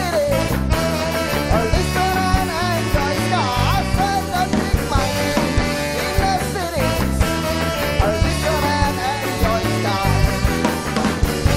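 Live ska-rock band playing with a steady beat: electric guitars, bass, drums and trombone, with a male lead singer.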